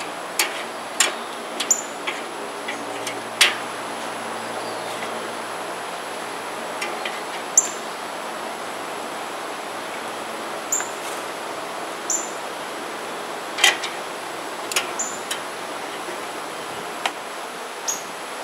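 Boudin burgers sizzling on a kettle grill in a steady hiss. Metal tongs click sharply against the grate and plate a dozen or so times as the patties are lifted off.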